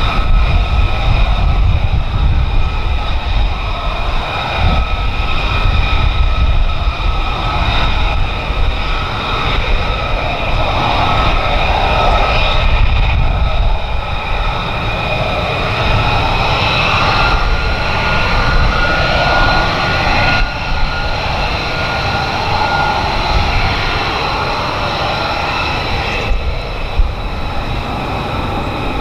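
F-35B fighter jet engine running: a steady high whine of several tones over a heavy low rumble, the whine rising slightly partway through.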